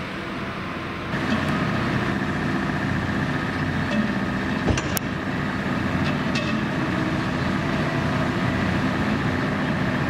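A large engine running steadily, joined about a second in by a steady high whine, with a couple of sharp clicks near the middle.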